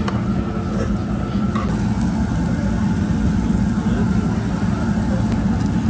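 Restaurant room noise: a steady low rumble with indistinct voices underneath.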